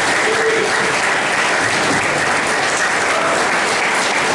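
Audience applauding steadily at the end of a piece.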